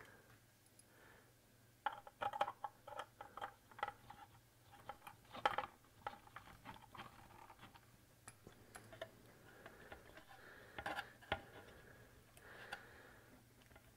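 Faint, irregular clicks and light knocks of a plastic electronics housing being handled and worked apart by hand.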